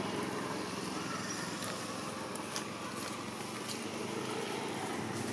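Steady outdoor background noise with a low hum of road traffic and a few faint clicks.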